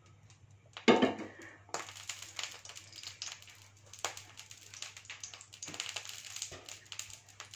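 A nonstick tawa set down on a gas stove grate with a single knock about a second in, then ghee heating in the pan, crackling faintly and continuously as it comes up to temperature.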